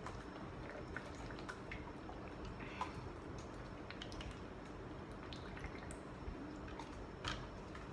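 Faint drinking and mouth sounds: scattered small wet clicks and a few louder ticks, as of sips of a chia seed drink.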